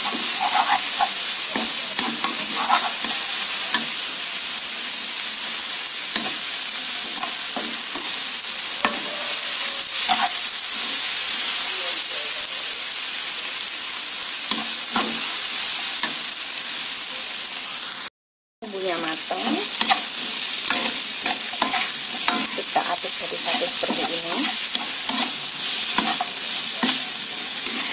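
Chopped lemongrass, garlic and shallots sizzling in hot oil in a nonstick wok, with a metal spatula scraping and stirring them; later the fried chicken pieces are tossed in with the aromatics. The sound cuts out for about half a second about two-thirds of the way through.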